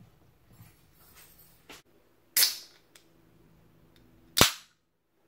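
Two sharp, close-up cracks about two seconds apart; the second is the pull-tab of a drink can being snapped open, with a brief hiss after it.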